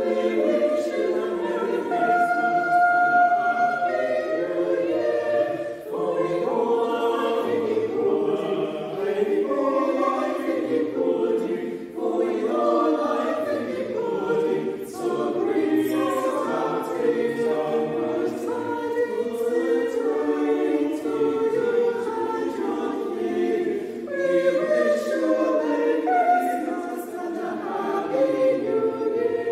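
Small mixed choir of voices singing a Christmas carol, phrase by phrase with brief breaths between.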